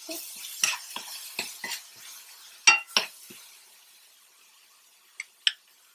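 A metal spoon clinking and scraping in the cooking pan and its container while ginger-garlic paste is spooned in, with two sharp knocks near three seconds. Oil sizzles faintly underneath and dies away, and there are two light clinks near the end.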